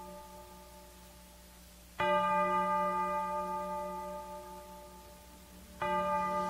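Recorded song intro: a bell-like chime struck twice, about four seconds apart, each note ringing on and slowly fading.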